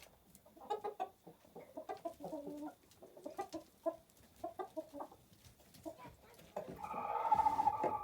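Chickens clucking in a run of short calls, with a louder, longer call near the end.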